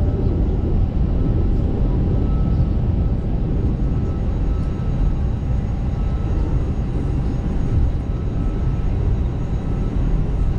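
Airbus A321LR airliner with its engines running: a steady low rumble with a faint high whine over it.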